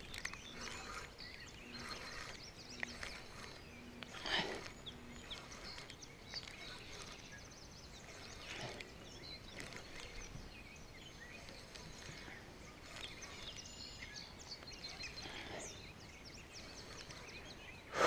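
Faint outdoor ambience by the water, with scattered bird chirps and a few soft knocks and rustles.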